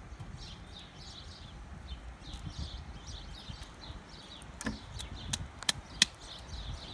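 Small birds chirping over and over, with a low background rumble. A few sharp clicks near the end are the loudest sounds.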